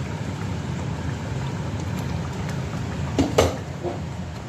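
Tomato sauce simmering in an uncovered steel pot, a steady bubbling, with one short clink about three and a half seconds in.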